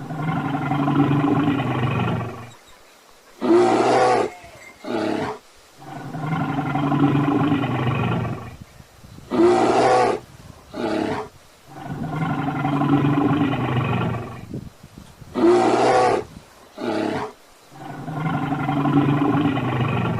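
Bear calling: a long drawn-out call of about two seconds followed by two short ones. The same sequence repeats about every six seconds, three times over, with a fourth long call starting near the end.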